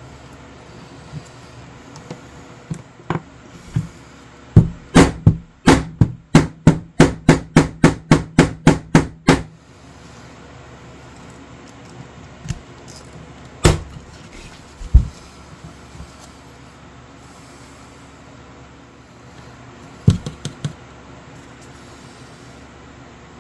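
A run of about eighteen quick, even hammer blows, about four a second. A few single knocks follow later.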